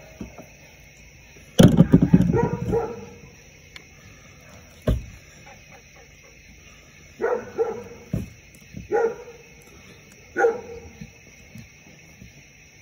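A dog barking: a loud, rough outburst about two seconds in, then three shorter barks spaced about a second and a half apart in the second half. There is a single sharp knock near the middle.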